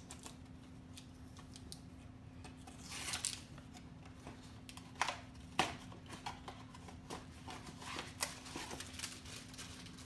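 A small cardboard blind box being opened by hand and its mini figure taken out: a brief rustle of packaging about three seconds in, then scattered sharp clicks and taps of cardboard, the loudest about five and a half seconds in.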